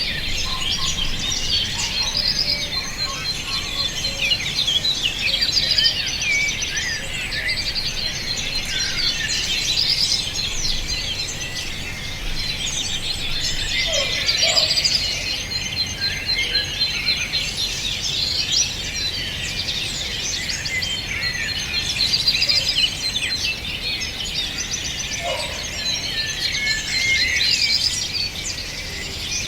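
A dense chorus of many small birds chirping and trilling at once, overlapping without pause, over a steady low background rumble.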